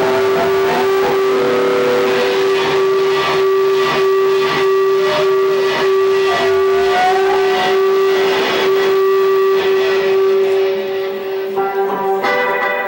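Rock band playing loud: distorted electric guitars over a steady drum beat with cymbal hits about twice a second, one long high note held through most of it. Near the end the held note drops out and the guitars break into separate shorter notes.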